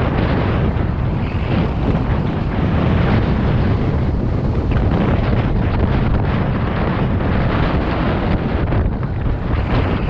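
Snowboard riding down through powder snow, the board hissing over the snow without a break, mixed with heavy wind buffeting on the microphone from the rider's speed.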